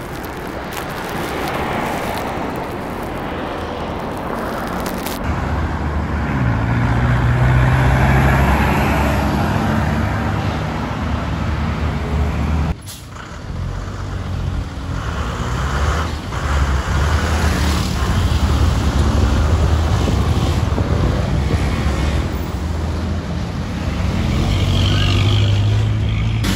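Bus and van engines running in city street traffic: first a passenger van driving by, then a Chevrolet school bus pulling away and moving off, with general road traffic around. The sound cuts off abruptly about halfway through and starts again on the next clip.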